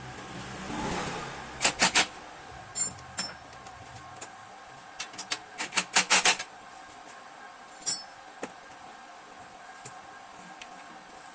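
Metal tools and parts clinking and clanking in a workshop: sharp knocks in small clusters, with a brief swelling hiss about a second in.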